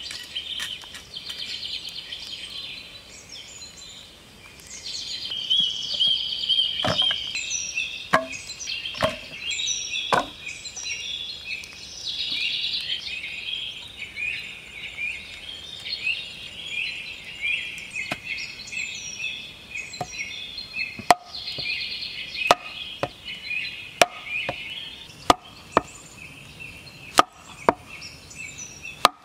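Sharp wooden knocks of a sharpened log stake being driven into clay soil, a few scattered ones, then a steady series about every second and a half in the second half. Insects and birds call throughout.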